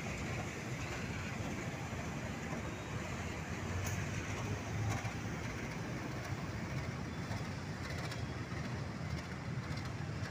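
KAI CC201 diesel-electric locomotive running as it hauls a train of fuel tank wagons past, a steady low engine rumble.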